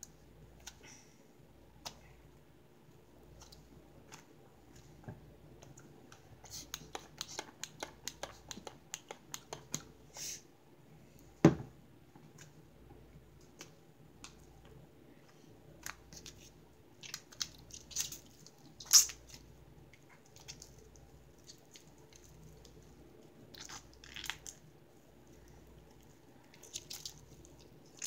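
Soft clay and slime being kneaded, pressed and pulled by hand, making sticky crackles and small pops in bursts. A single sharp knock, the loudest sound, comes about halfway through.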